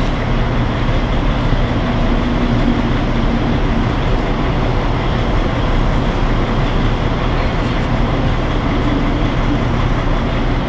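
Steady, loud low rumble of road traffic heard from beneath an elevated roadway, a continuous noise with a faint droning tone now and then.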